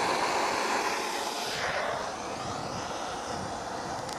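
A flame lighting with a sudden whoosh, then a steady hissing rush that slowly eases off.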